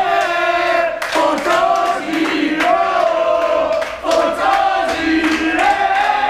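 A group of men chanting and singing together, with rhythmic hand clapping about twice a second.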